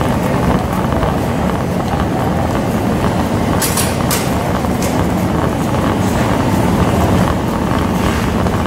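Steady low rumbling and rustling handling noise from a body-worn camera moving as its wearer walks, with a few brief clicks about four seconds in.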